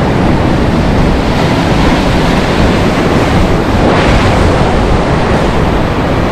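Ocean surf breaking and washing over rocks, with wind buffeting the microphone. A wave washes up over the rocks about four seconds in.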